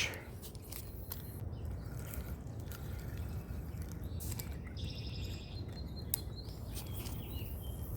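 Lakeside outdoor ambience: a steady low background rumble with a few small clicks, and a short bird call about five seconds in, a quick run of high notes.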